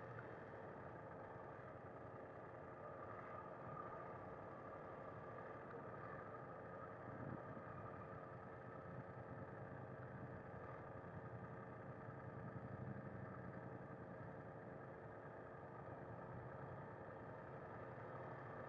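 BMW F 900 R's parallel-twin engine running steadily at low revs as the motorcycle pulls away and rolls slowly.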